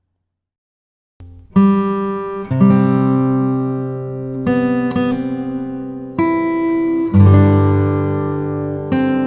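Background music of plucked acoustic guitar chords, starting about a second in, with a new chord struck every second or so and left to ring.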